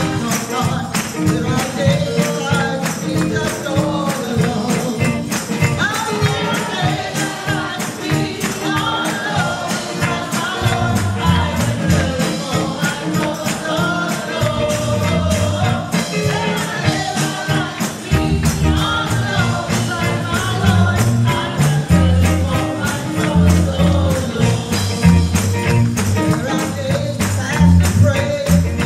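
Live gospel praise music: a choir singing with keyboard and drums to a steady beat.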